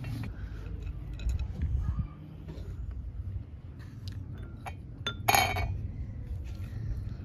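Light clinks and knocks of a wooden spoon against glass bowls as halwa is scooped and served, with one louder, longer clatter about five seconds in. A low steady rumble lies underneath.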